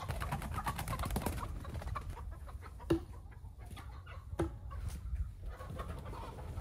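Chickens clucking, with a quick run of clicks in the first second and two sharp knocks about three and four and a half seconds in.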